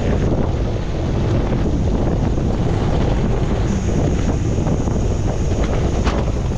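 Heavy wind noise on a GoPro's microphone as a gravel bike rides over a rough gravel track, with the tyres crunching on loose stones underneath.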